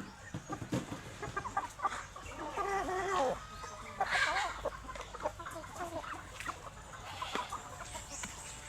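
Chickens clucking, a string of short calls that bend in pitch, with a louder run of calls about three and four seconds in.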